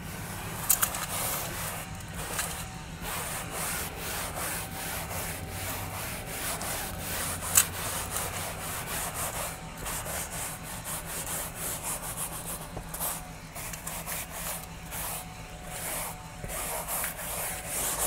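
Crumby mini vacuum, a small battery-powered hand vac with hard bristles, scrubbed back and forth over a cloth car seat: a fast rhythmic rasping of bristles on fabric over the faint whine of its motor, with a sharp click about a second in and another near the middle.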